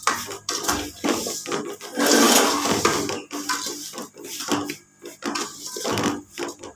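Metal spoon stirring and scraping dry fine broken wheat (daliya) around a metal pot. The grains rasp and the spoon clinks against the pot in irregular strokes, busiest about two seconds in.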